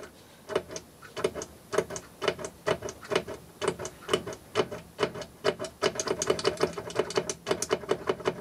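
Push buttons on a three-phase electronic electricity meter pressed over and over, giving a rapid run of irregular plastic clicks, several a second, as its menus are stepped through.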